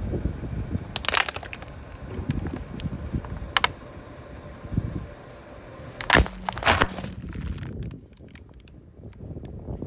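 Car tyre rolling over full plastic water bottles and a Vita Coco coconut-water carton, crushing them. Sharp cracking pops come about a second in and near four seconds, then the loudest cluster of pops around six to seven seconds as the bottles give way and burst, over the low rumble of the slowly rolling car.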